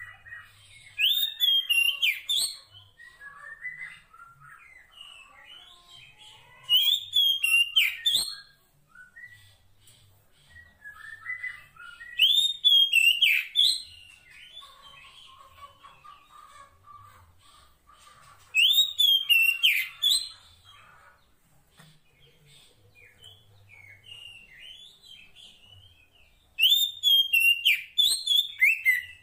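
Female oriental magpie-robin (kacer poci) singing a call to draw a male: five loud whistled phrases of about two seconds each, some six seconds apart, with softer twittering between them.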